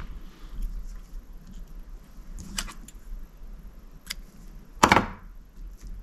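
Small clicks and taps of fly-tying tools and thread handled at the vise as the thread is knotted off, with one louder brief rustle about five seconds in, over a low steady hum.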